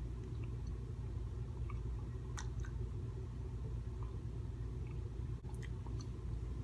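A person chewing Vienna sausages, with scattered small wet mouth clicks, over a steady low hum.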